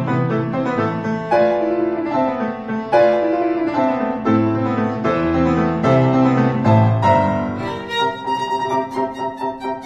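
Instrumental background music: piano with bowed strings, the notes turning shorter and quicker near the end.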